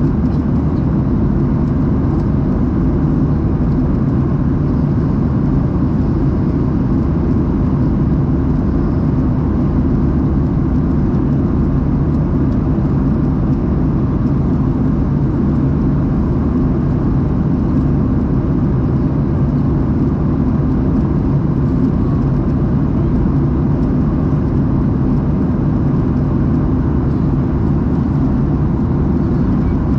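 Steady cabin drone of a Boeing 737-800 airliner in flight: engine and airflow noise heard from inside the cabin, a constant low hum that does not change.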